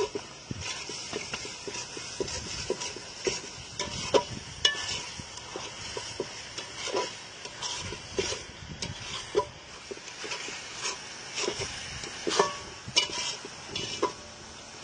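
Metal spatula scraping and knocking against a large metal pan as a thick egg masala is stirred and turned over, in irregular clinks several times a second, some ringing briefly.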